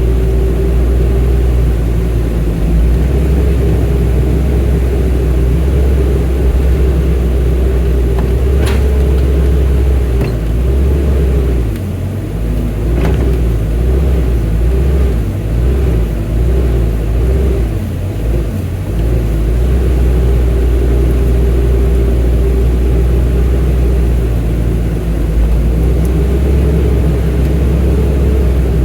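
An excavator's diesel engine running steadily. The low note wavers and dips for several seconds in the middle, and two short sharp sounds stand out, one about a third of the way in and one a few seconds later.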